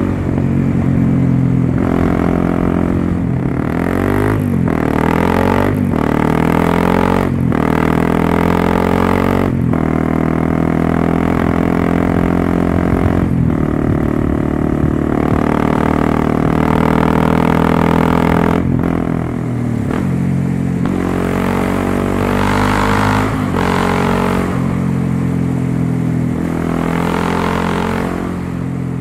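Honda CRF250M's single-cylinder four-stroke engine through a Yoshimura road-legal exhaust, pulling through the gears: the pitch climbs between short breaks at each shift. Later the revs run steadier, then fall and rise again near the end.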